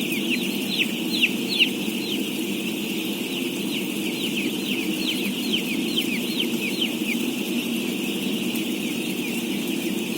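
A large flock of day-old chicks peeping all at once: a dense, continuous chorus of short downward-sliding peeps, with a few louder single peeps between one and two seconds in, over a steady low hum.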